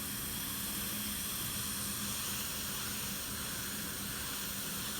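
Steady hiss with a faint low hum underneath, even throughout with no distinct events.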